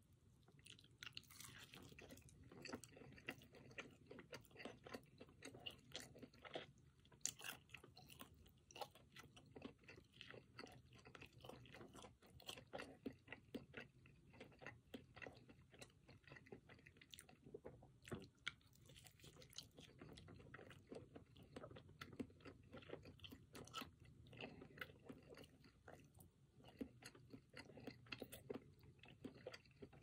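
A person biting and chewing a spice-crusted, oven-roasted chicken drumstick: continuous wet chewing with many small crunches and clicks.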